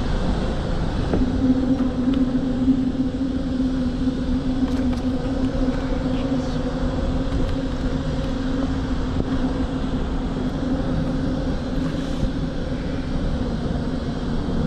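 An engine drones steadily at a low, even pitch, growing louder about a second in and then holding, over a constant low background rush.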